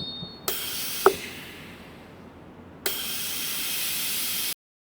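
Compressed air hissing from a C299PRO tire changer's automatic inflator as it pumps air into the tire: a hiss about half a second in that fades, a sharp click about a second in, then a second steady hiss from about three seconds in that cuts off suddenly.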